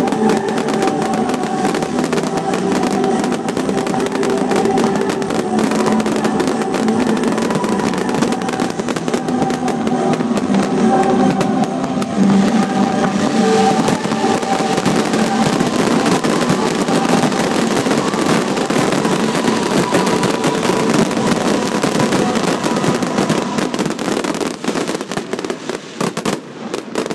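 Fireworks display: a dense, continuous run of bangs and crackling from aerial shells. Music plays under it, strongest in the first half and fading back after about twelve seconds.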